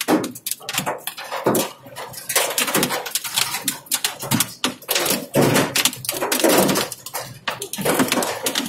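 Heavy rain drumming on a car's roof and windshield, heard from inside the cabin as a dense, irregular patter of sharp hits.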